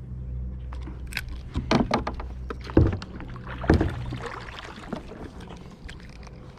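Kayak paddling: paddle strokes splashing and knocking against the kayak, the sharpest two about a second apart, over a steady low hum.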